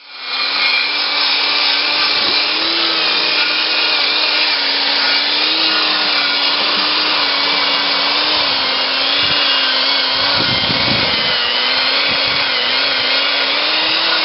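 A motor running steadily at constant speed, loud and even, with a slightly wavering hum.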